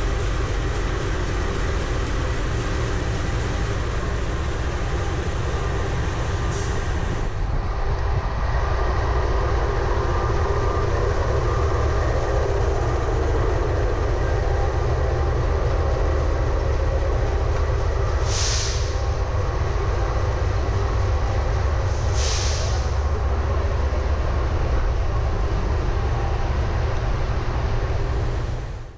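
Diesel-electric locomotive engine idling with a steady, deep rumble. Two short hisses come in the second half.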